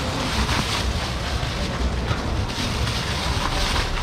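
Plastic bags crinkling and rustling in irregular bursts as seafood packs are bagged, over a steady low rumble like wind on the microphone.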